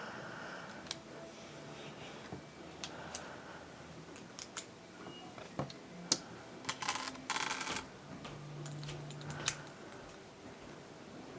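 Small plastic and metal Beyblade parts clicking and tapping as they are handled, with a short run of rapid clicks about seven seconds in.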